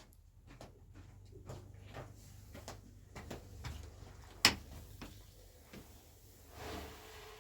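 Scattered light knocks and taps of manual work, with one sharp knock about four and a half seconds in and a short scraping rustle near the end.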